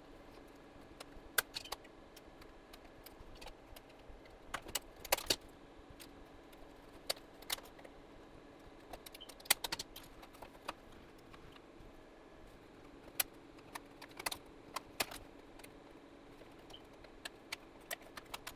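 Scattered sharp clicks and taps of plastic parts and small tools being handled while a plastic power strip housing is taken apart, coming singly and in small clusters over a faint steady background hum.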